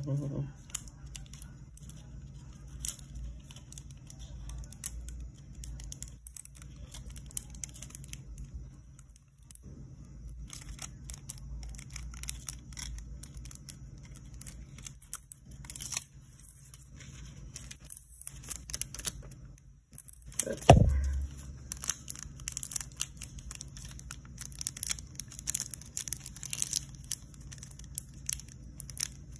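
Thin snakeskin nail transfer foil crinkling and crackling as it is handled and pressed onto gel nails, with one loud thump about two-thirds of the way through.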